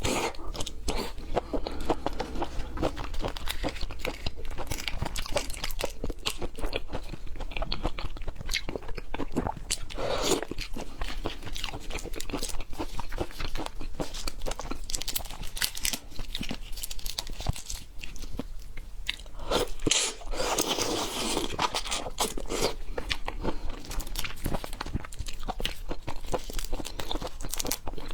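Close-miked chewing of raw seafood: steady wet crunching and smacking of the mouth, with many small crunches packed together.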